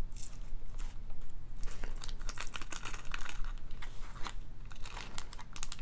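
Small plastic zip-top bags crinkling and rustling as they are handled, with many quick, irregular crackles.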